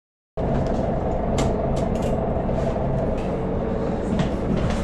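Inside a moving bus: a steady engine and road rumble with a constant hum and a few sharp rattles, cutting in after a moment of silence.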